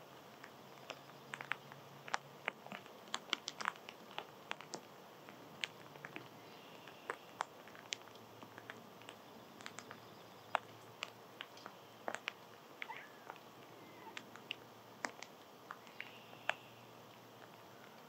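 Irregular sharp clicks and taps, at times several a second, of small animals pecking at and cracking seed close to the microphone.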